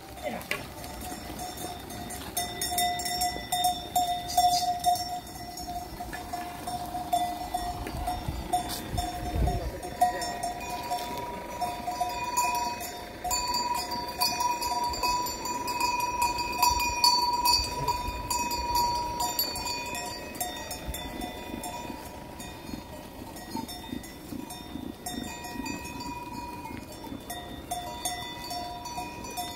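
Many sheep bells clanking and ringing together from a large flock of sheep on the move, several bell tones overlapping and fading in and out.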